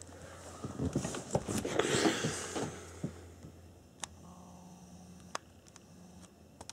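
Rustling and handling noise as the camera is moved about over a bed and blanket, loudest in the first three seconds. After that it goes quieter, with a few soft clicks.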